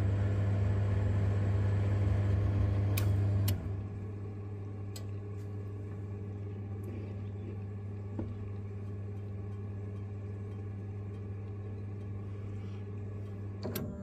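Vaillant boiler running on a central heating demand: a steady electrical hum with a low buzz. It is louder for the first three and a half seconds, then quieter, and it stops near the end, with a few faint clicks along the way.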